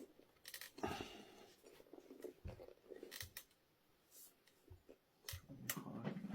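Faint, scattered clicks and rubbing scrapes of a rubber e-scooter tyre being worked and levered off its wheel rim by hand. A denser rubbing comes near the end.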